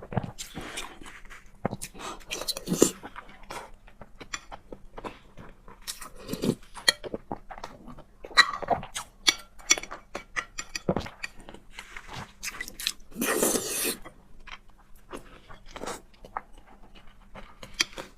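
Close-miked eating of fried eggs and noodles: wet chewing, biting and mouth smacks in quick irregular clicks, with a longer noisy burst about thirteen seconds in.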